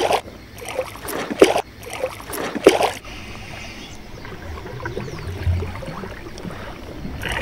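Hooked small black bass splashing at the surface of shallow water close to the bank: three sharp splashes over the first three seconds, then quieter water sounds.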